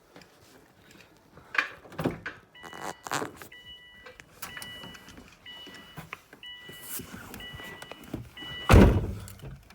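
A few clunks, then the Subaru Impreza's electronic warning chime beeping steadily, about once a second for several seconds, until it stops and a loud thump follows, like a car door shutting.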